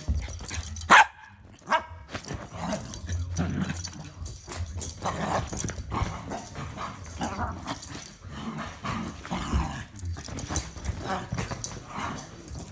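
A pet dog barking and vocalizing: one very loud bark about a second in, then a continuous run of shorter barks and vocal sounds.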